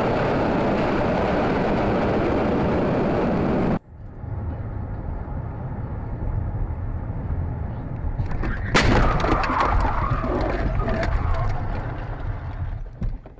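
Dash-cam car crash audio: a loud, harsh crashing and scraping noise as a car rolls, cut off abruptly about four seconds in. Then steady road noise inside a moving car, and about nine seconds in a sudden crash with rattling and scraping as the car leaves the road, fading near the end.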